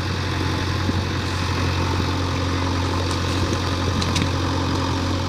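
Diesel engine idling steadily, a constant low hum with a few faint clicks in the second half.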